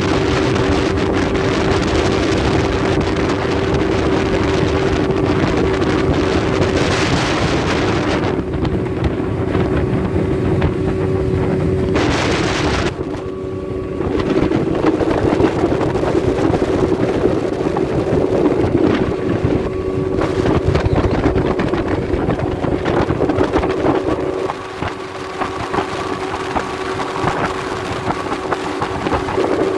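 Outboard motor of a small jon boat running steadily at cruising speed, with wind rushing over the microphone. The sound dips briefly a couple of times.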